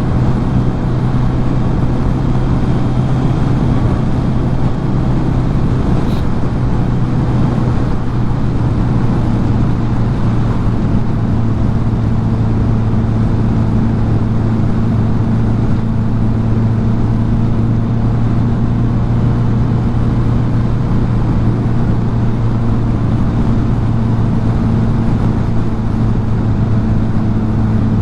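Kawasaki Z900's inline-four engine running at a steady cruise, its engine note holding an even pitch, with a dense rush of road and wind noise beneath it.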